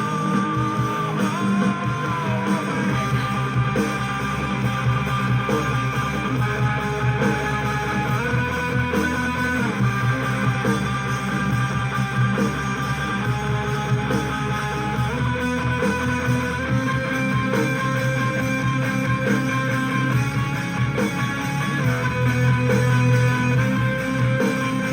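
Background music: a guitar-led instrumental with a steady bass line.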